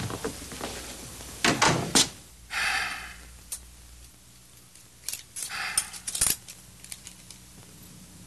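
A door shutting with a couple of knocks, followed by scattered rustles and sharp clicks as someone moves about beside a bed.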